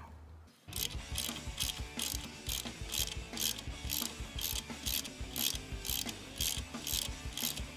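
Ratchet wrench clicking at an even pace, about two to three clicks a second, as it turns in the adjustable swingarm pivot pin of a BMW R1150GS to close the gap against the pivot bushings.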